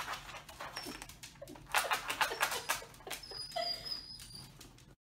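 A dachshund's claws scratching rapidly at a doormat in quick bursts of strokes, with a brief thin high whimper about three and a half seconds in. The sound cuts off abruptly near the end.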